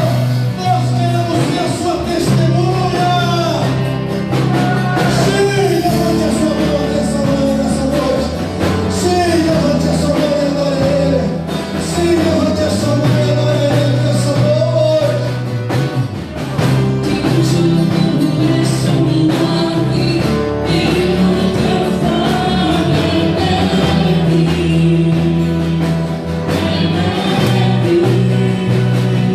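Worship music: singing over a band with steady bass and drums, typical of a church praise band.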